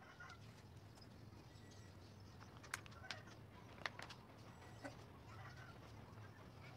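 Near silence with a low steady hum and faint bird calls in the background. A few light, sharp clicks come around the middle, from handling on the worktable.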